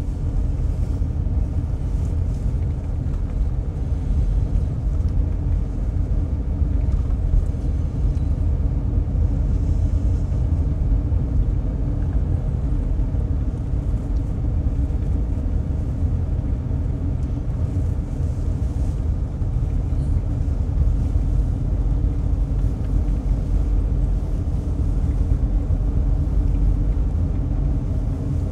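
A car driving at a steady speed: a continuous low rumble of engine and road noise.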